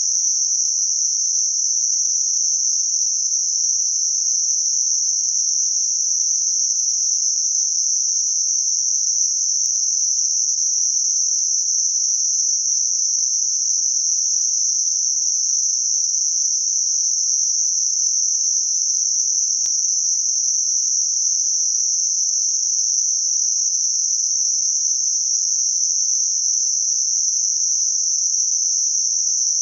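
Synthetic 6 kHz Gaussian narrowband noise: a steady, unchanging high-pitched hiss confined to a narrow band, used to mask high-frequency tinnitus.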